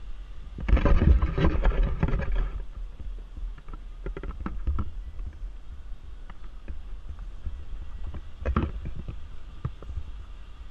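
Jeep Wrangler JL crawling over a rocky trail: a low engine rumble under bursts of knocking and crunching from tires and rocks, loudest about a second in and again near the end.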